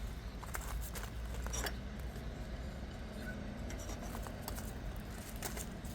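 Scattered small clicks and scrapes of hands handling pots, soil and plants while repotting succulents, over a low steady background rumble.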